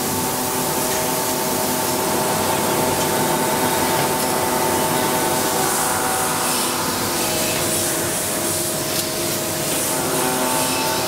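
Steady machine hum and hiss of a robotic CNC machining cell, with several steady whining tones as the Yaskawa robot arm moves; the tones shift about seven seconds in.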